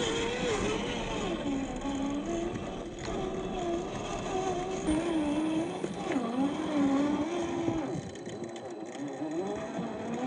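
Electric 550-size 21-turn brushed motor and gearbox of a 1/10-scale RC4WD TF2 crawler whining, the pitch gliding up and down as the throttle changes.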